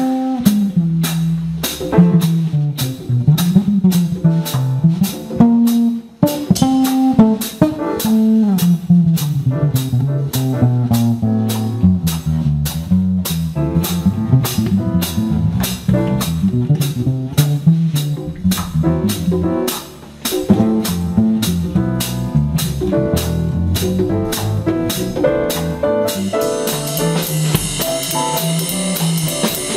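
Jazz combo playing: an electric bass guitar carries a prominent moving melodic line while the drums keep time with a steady cymbal pattern. Near the end the drums get louder with a wash of cymbals.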